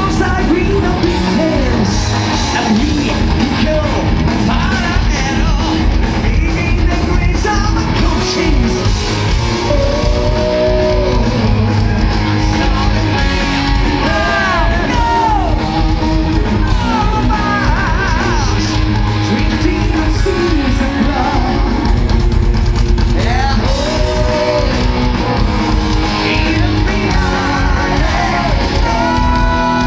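Power metal band playing live, heard loud through the festival PA: distorted electric guitars, bass guitar and a full drum kit, with male lead vocals and lead guitar lines gliding in pitch.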